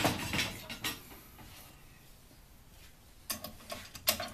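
Knocks and clatter at the start, then a run of sharp metallic clicks and rattles near the end as the metal handle and fittings of a cast-iron table saw are worked by hand.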